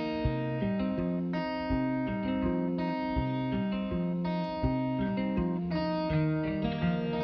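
Background music led by a plucked guitar, with notes changing at a steady pace over a regular beat.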